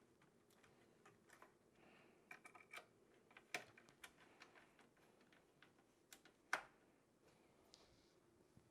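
Sparse, faint clicks and ticks of a screwdriver and small screws as a motherboard is screwed down onto the standoffs of a PC case, the sharpest click about six and a half seconds in.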